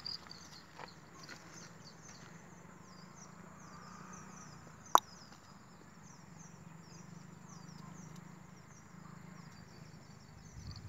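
Goat hooves stepping on a dirt track, a few faint steps near the start, with a single sharp click about five seconds in. A high, rapidly repeating chirping goes on through most of the middle.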